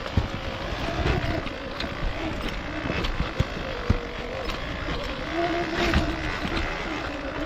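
Off-road motorcycle engine running on a rough trail, its pitch wavering up and down, with scattered knocks and rattles from the bumpy ground.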